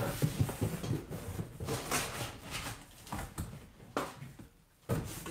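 Cardboard packaging scraping and rustling as a cardboard insert is pulled up out of a box, in irregular bursts with a few light knocks.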